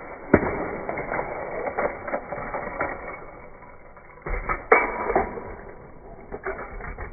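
Hot Wheels die-cast toy cars rolling and clattering along plastic track, with a sharp click just under half a second in and a louder knock about four and a half seconds in.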